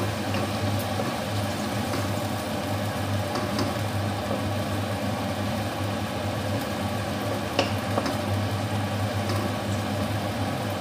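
Pan of sardines in tomato sauce with zucchini cooking on the stove: a steady hiss under a constant low hum, with a few light clicks of utensils against the can and pan.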